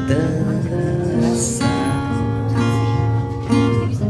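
Acoustic guitar played slowly, accompanying a tender ballad, with chords and notes ringing out and changing about every half second.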